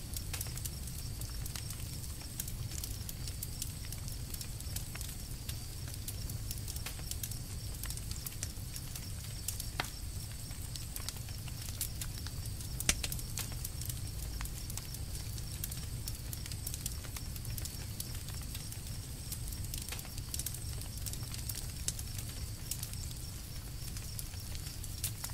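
Campfire burning: irregular sharp crackles and pops of the burning wood over a low steady rumble, with one louder pop about halfway through.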